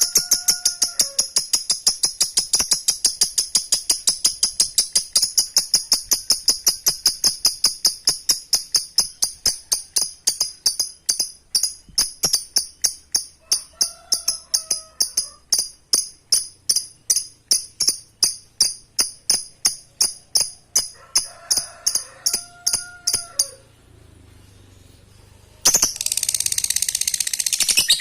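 Lovebird's long 'ngekek' call: a fast, sustained run of sharp high-pitched chattering notes that slows a little and stops near the end, then starts again after a short pause.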